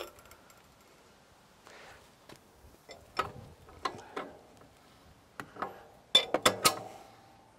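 Metal clicks and clinks from a hand tool turning the spring-adjustment bolt on a kamado grill's lid hinge. A few scattered clicks come first, then a quick run of sharper ones about six seconds in.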